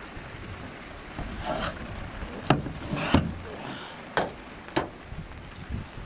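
Roof-cleaning work: a few sharp knocks and short swishing or scraping strokes, over wind rumble on the microphone.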